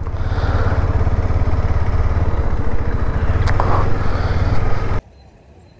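Motorcycle engine running while riding, with wind and road noise over it, cutting off abruptly about five seconds in.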